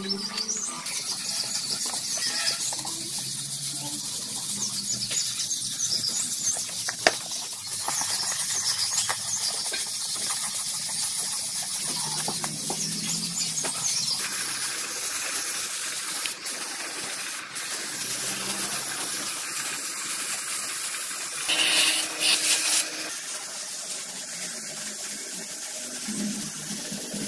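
A sandpaper block rubbed by hand over primed plastic motorcycle fenders and side panels, a scratchy hiss of quick back-and-forth strokes. A louder rush of noise about a second and a half long comes near the end.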